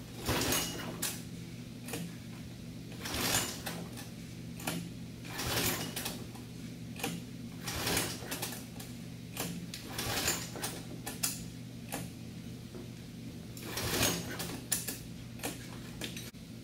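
Tecumseh 8 hp rototiller engine being pull-started: about a dozen short rope-pull strokes at uneven intervals, the engine turning over but never catching. It will not start because the fuel shutoff valve on the bottom of the carburetor is closed.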